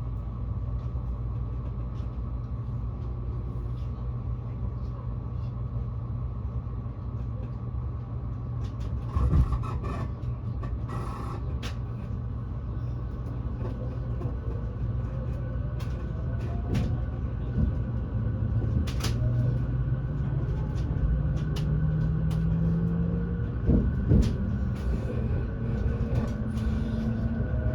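Inside an E257 series electric train: a steady low rumble, then from about halfway a rising motor whine as the train pulls away and gathers speed, with occasional knocks and clicks.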